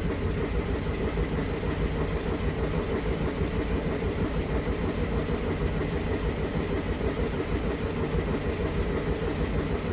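Engine being cranked over by its starter motor without catching, a steady rhythmic churning that stops abruptly at the end. The motor fails to start, which the owner puts down to the carburetor.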